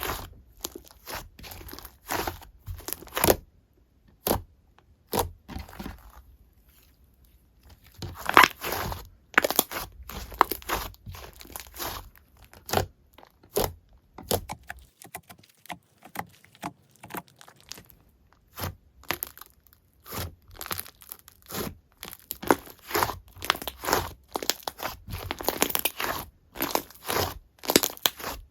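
Slime being squeezed, poked and stretched by hand: rapid, irregular sticky clicks and crackly pops, with a couple of short pauses.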